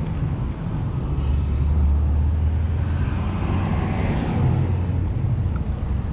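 Wind rumbling on the microphone, with a broad hiss that swells and fades about four seconds in.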